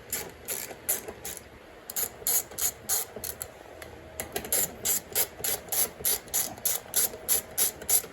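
Ratchet wrench clicking in repeated strokes, about three clicks a second, as a 10 mm bolt is backed out of the dirt bike's side number plate. There are brief pauses between runs of strokes.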